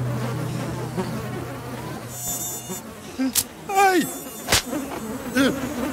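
Cartoon mosquito swarm buzzing, with the high, close whine of a single mosquito about two seconds in. This is followed by two sudden sharp clicks and a couple of short falling sound effects.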